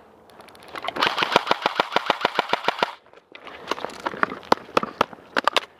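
Airsoft gun firing on full auto, a rapid burst of about two seconds at roughly ten shots a second, followed after a short pause by scattered single shots.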